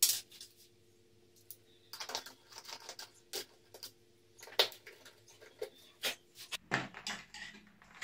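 Scattered clicks and metallic clinks of cable ring terminals, wires and a server power supply being handled on a tabletop, with a short run of rattling clatter about two seconds in and a sharp click at the very start.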